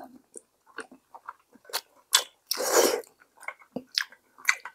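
Close-up eating sounds of someone taking a mouthful of thick perilla-seed sujebi soup: wet mouth smacks and chewing clicks, with one longer noisy slurp about two and a half seconds in.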